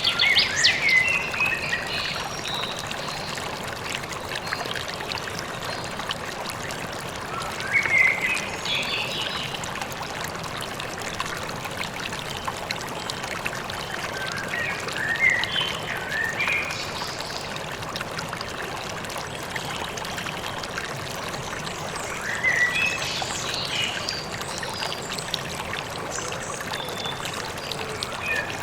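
Steady rush of a flowing stream, with a bird singing short bursts of chirps every several seconds, about four phrases in all.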